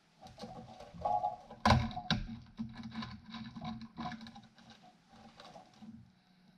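Clicks and knocks of tools and metal parts being handled on a workbench, with two sharp knocks a little under two seconds in.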